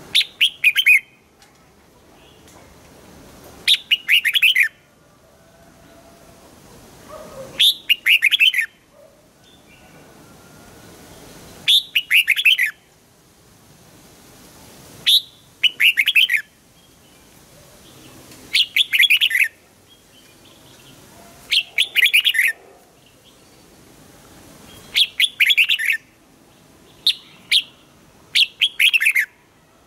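Red-whiskered bulbul singing: short phrases of quick, clear notes, repeated every three to four seconds.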